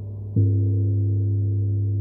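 Large hanging gong struck once with a mallet about a third of a second in. It gives a deep, full tone with several higher overtones that ring on and slowly fade, over the gong's ringing from an earlier stroke.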